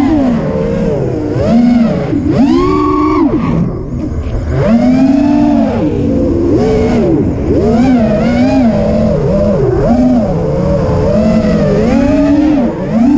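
FPV racing quadcopter's motors and propellers whining as heard from the onboard camera, the pitch swooping up and down constantly with the throttle over a rush of air. About three seconds in the throttle drops off briefly, and the whine dips and quietens before climbing again.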